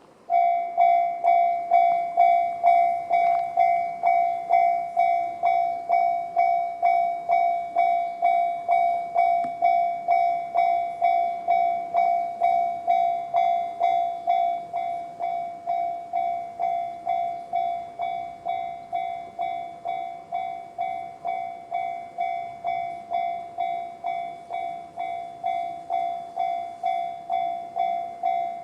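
Japanese level-crossing warning alarm in the JR standard tone: an electronic bell that starts at once and repeats steadily, about two strikes a second, each strike fading quickly.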